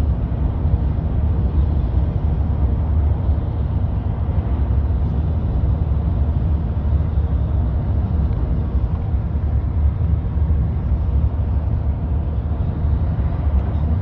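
Steady low road and engine rumble inside the cabin of a moving car, with no changes or distinct events.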